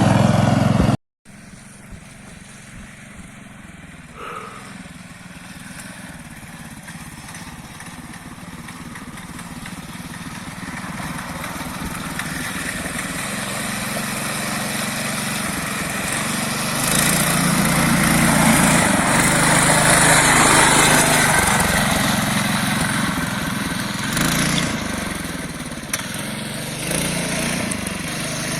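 Engine of a homemade two-wheel-drive motorcycle working through heavy mud, cut off briefly about a second in. It then comes back faint and grows steadily louder, its engine note strongest about two-thirds of the way through and rising and falling after that.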